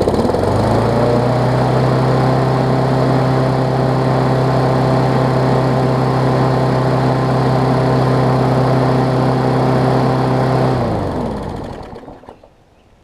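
Craftsman push mower's Briggs & Stratton Classic single-cylinder engine starting, speeding up and running at a steady speed, then shut off and winding down about eleven seconds in. It runs smoothly, without vibration, after a new carburetor diaphragm and spark plug.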